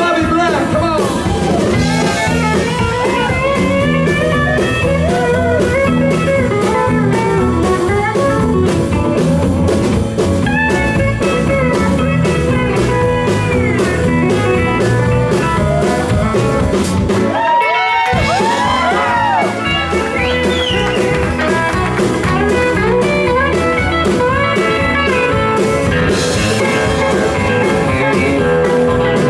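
Live country-rock band playing an instrumental break: lead guitar and pedal steel with bending notes over bass, keys and drums at a steady beat. About seventeen seconds in, the bass and drums drop out for a moment, then the band comes back in.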